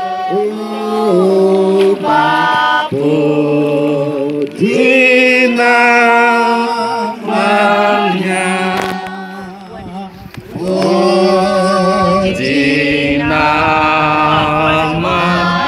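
Voices singing a slow hymn-like melody in long held notes that move in steps, with a brief dip in loudness about two-thirds of the way through.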